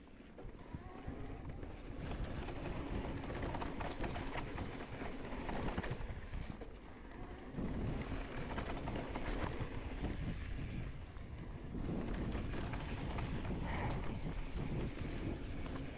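Mountain bike descending a dirt singletrack: tyres rolling over dirt and stones and the bike rattling over the bumps, with wind rushing over the microphone.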